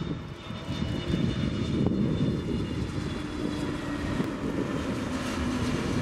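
Airbus A320neo's Pratt & Whitney PW1100G geared turbofan engines passing low overhead on short final approach to land. A steady jet rumble with a faint high whine over it in the first few seconds.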